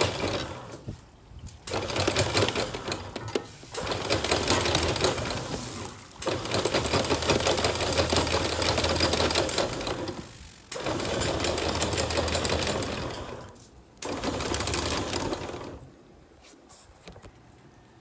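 Electric anchor windlass running in several bursts of a few seconds each, with the chain clattering over the gypsy as it hauls anchor chain aboard. It stops near the end.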